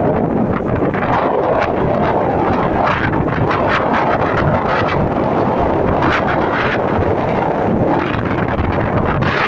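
Strong wind buffeting the microphone with a steady low rumble and repeated gusts, over waves breaking and washing on a rocky riverbank.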